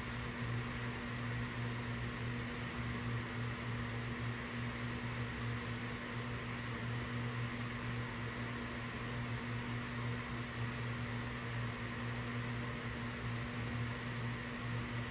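Steady background hum and hiss with no events: a low hum and a faint higher whine over even noise, the kind a fan or electrical equipment makes in a small room.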